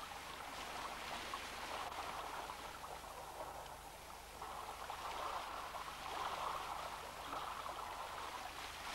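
Steady rush of shallow water, a little louder in the second half.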